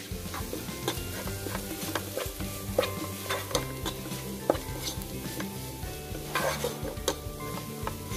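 Spatula scraping and knocking against a nonstick frying pan, several clicks a second, as spiced chopped onions are stirred over a steady sizzle of frying.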